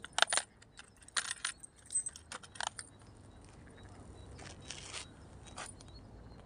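Light clicks and metallic clinks of fishing tackle handled close to the microphone as a chatterbait lure is picked out, a quick run of them over the first two and a half seconds. A softer rustle follows about four to five seconds in, with one more click near the end.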